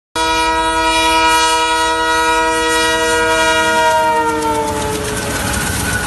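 A train's horn blows one long, many-toned chord as a locomotive approaches. About four seconds in the pitch slides down as the locomotive passes and the horn fades. It gives way to the rumble and clatter of coaches rolling by.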